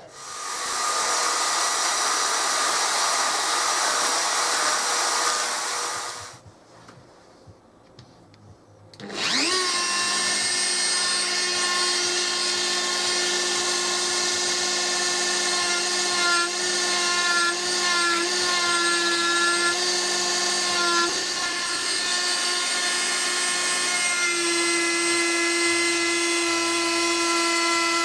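For about six seconds a harsh, hissing power tool runs, then stops. About nine seconds in, a flexible-shaft rotary tool spins up and runs with a steady high whine, its pitch shifting slightly as the carving bit works the wood.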